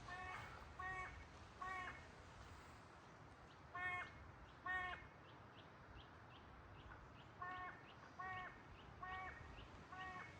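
A large bird calling: short, faint calls in series of three, then two, then four, roughly one call every 0.8 s.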